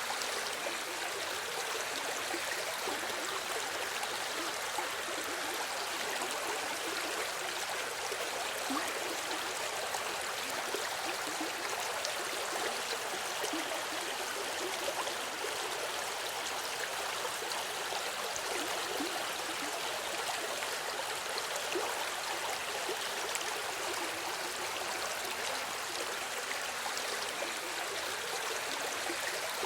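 Running river water: a steady rushing and babbling of a stream flowing over stones, with small gurgles and splashes flickering through an even hiss.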